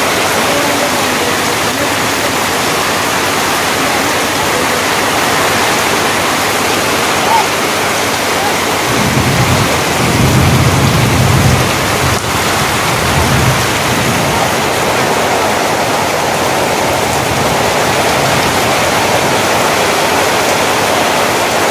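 Heavy rain pouring down onto a road, a dense steady hiss. About nine seconds in, a low rumble swells for a few seconds and fades back into the rain.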